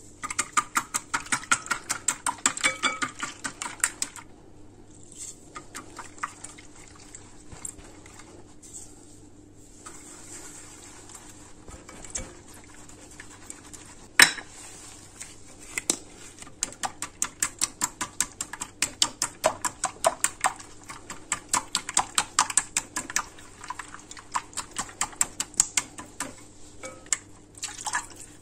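Whisk beating eggs and sugar in a glass bowl: fast, rhythmic ticks of the wires against the glass. The ticks come in two long spells, with a quieter stretch between them and a single sharper knock in the middle.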